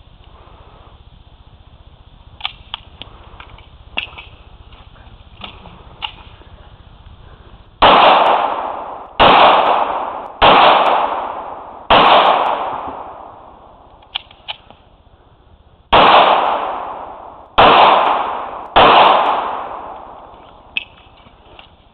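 Pistol shots fired one at a time on a course of fire: four about a second and a half apart, a pause of about four seconds, then three more, each shot trailing off over a second or so.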